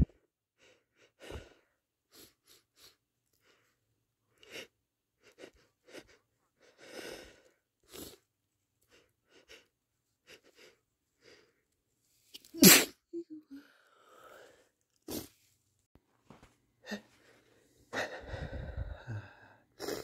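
A person sneezing: a run of short sniffs and breaths, one loud sneeze a little past halfway, then a longer, noisier burst near the end.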